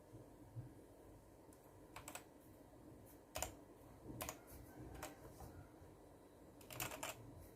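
Keys of a Vortex VX9 Pro mechanical keyboard with Outemu switches being pressed, faint separate clicks a second or so apart with a short quick flurry near the end.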